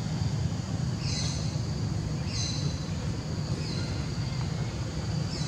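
Outdoor ambience: a steady low rumble, with a bird's short high chirp repeated four times, about every second and a half.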